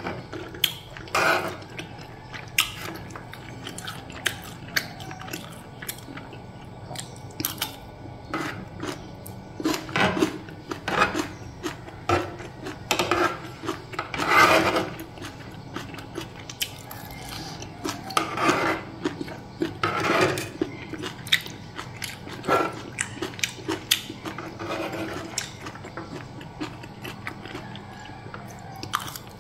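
Close-up eating sounds: a metal fork and spoon scraping and clicking against a tray while gathering fried noodles, with chewing in between. Irregular short scrapes and clicks.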